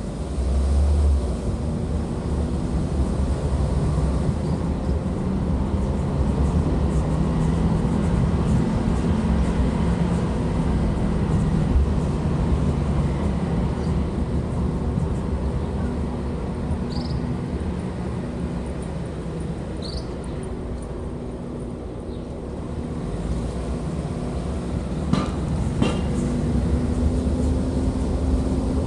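Steady low rumble of a running engine, its pitch shifting up and down now and then.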